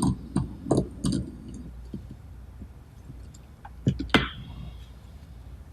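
Small metal parts of a pneumatic attachment being handled and threaded together by hand: a run of light clicks in the first second and a half, then a couple of sharp metallic clinks about four seconds in.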